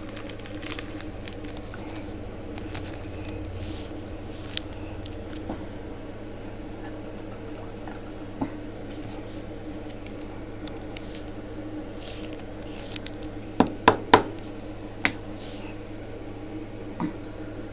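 Trading cards and packs being handled: soft rustling and scraping with scattered light ticks, and a quick run of sharp clicks about fourteen seconds in. A steady low hum runs underneath.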